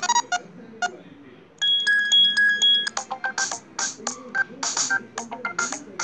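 Ringtone previews playing from a Celkon CT-7 tablet's speaker as tones are picked one after another in its ringtone list. A melody of held electronic notes gives way about three seconds in to a quicker, rhythmic ringtone of short notes.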